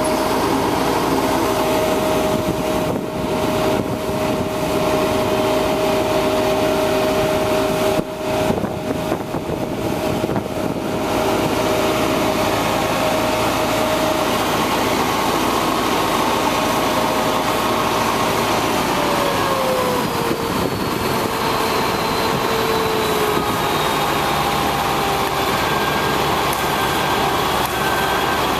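A 1999 International digger derrick truck's engine and hydraulic system run with a steady whine as the boom is lowered and stowed. The whine slides down in pitch about two-thirds of the way through.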